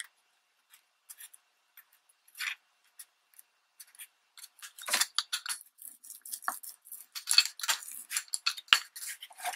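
Magazine paper rustling and crackling as glued strips are pressed flat and smoothed by hand: a few soft rustles at first, then busier from about five seconds in, with a rubber roller run over the paper near the end and one light tap.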